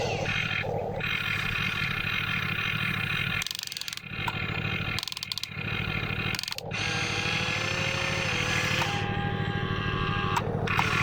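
Radio-controlled model construction machines running: a steady engine-like drone, with the thin whine of small electric motors drifting up and down in pitch. The sound dips out briefly a few times in the middle.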